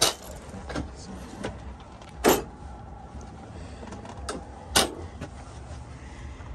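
Steel tool-cabinet drawers being slid open and shut: three sharp metallic clunks, the loudest a little past two seconds in, with lighter clicks between, over a steady low hum.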